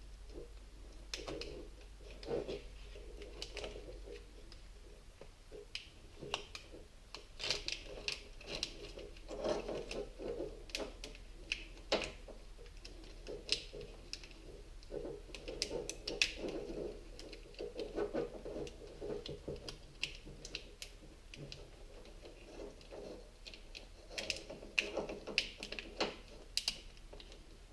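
Wire-loom shielding being handled and worked over a bundle of wires: irregular clicks, crackles and rustling.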